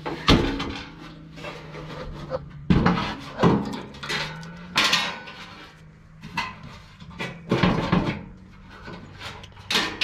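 Knocks and metallic clanks from a sheet-metal furnace blower housing being handled and set down on a wooden deck. There are about half a dozen separate impacts.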